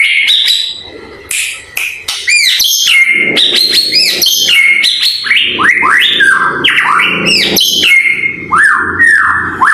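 White-rumped shama (murai batu) singing: a loud, fast run of slurred, arching whistles, with a short lull about a second in before the song picks up again.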